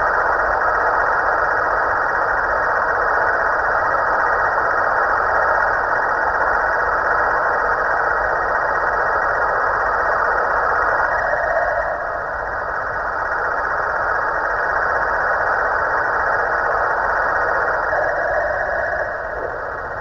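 Snoring sound from a Halloween pumpkin decoration: a loud, steady, rough noise that eases off briefly about twelve seconds in and again near the end.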